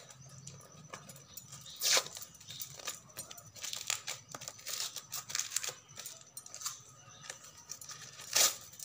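Brown paper wrapping crinkling and tearing as it is pulled off a small wooden box, with scattered rustles and clicks. There are two louder sharp sounds, about two seconds in and near the end.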